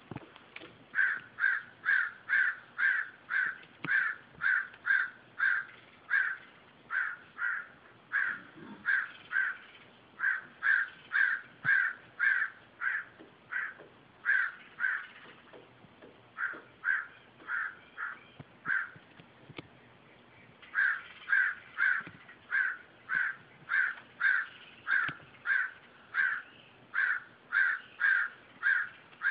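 Crows cawing in a long, rapid series of short harsh caws, about two a second, pausing briefly twice before starting up again.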